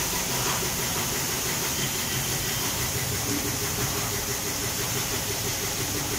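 High-pressure washer jet spraying the underside of a car on a lift: a steady hiss of spray with a low drone underneath, unbroken throughout.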